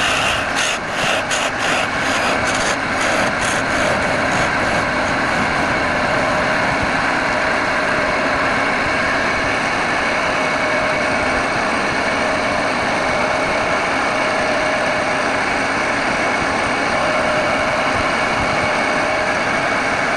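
Wood lathe running steadily with a constant motor hum. In the first few seconds a run of rubbing strokes, sanding or a tool working the spinning wood, dies away, leaving the machine running alone.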